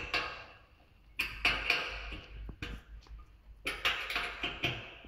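Metal parts of a manual hospital bed frame clinking and rattling as the end frame is fitted and fastened to it by hand, in three short bouts of clatter.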